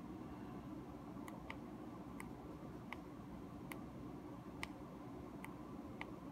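Small tactile pushbutton on a breadboard circuit clicking under a fingertip: about eight sharp, faint clicks, unevenly spaced roughly one a second, over a steady low hum.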